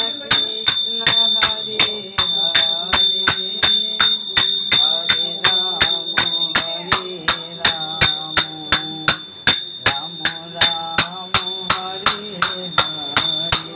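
Bengali devotional kirtan: voices singing to small hand cymbals struck in a steady beat, about three strikes a second, with a bright ringing tone held over the strikes.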